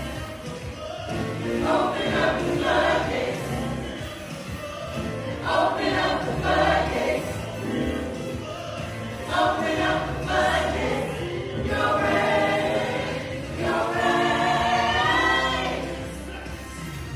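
Gospel choir singing, in phrases a few seconds long with short breaks between them.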